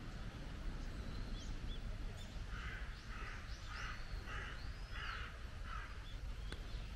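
Birds calling: a run of about six harsh calls in a row, roughly half a second apart, among thin high chirps from small birds, over a low steady background rumble.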